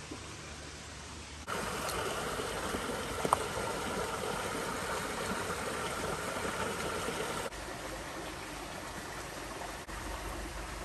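Creek water running, an even rushing hiss that is louder from about a second and a half in until about seven and a half seconds in. A single sharp click about three seconds in.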